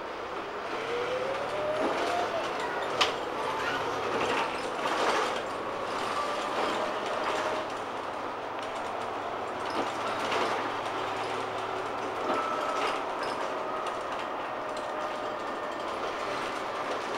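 Ride noise inside a Volvo Plaxton President double-decker bus on the move: the engine and drivetrain running steadily, with body rattles. A whine rises in pitch during the first couple of seconds as the bus pulls away, and there is a sharp click about three seconds in.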